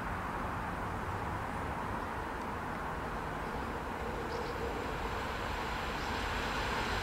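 Electric multiple unit train approaching along the track, a steady rumble that grows slowly louder.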